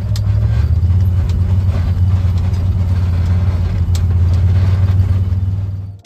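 UTV engine running steadily under way, a low drone with a few faint clicks over it. It fades out near the end.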